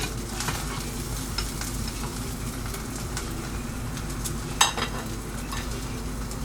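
Eggs frying in a pan, a steady sizzle with small crackling pops. A single sharp clack about four and a half seconds in.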